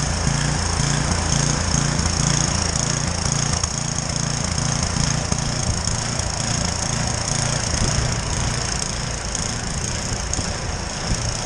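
A snow thrower running steadily while clearing heavy, wet snow.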